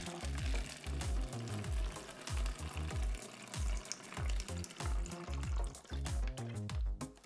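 6% hydrogen peroxide pouring from a plastic jug into a plastic water bottle: a steady splashing hiss, over background music with a regular beat.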